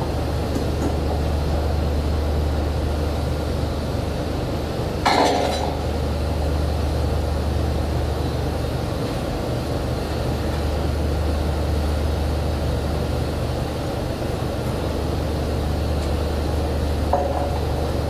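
Drilling rig machinery running with a steady low drone, with a sharp ringing metallic clank about five seconds in and a lighter one near the end, as pipe is handled during tripping.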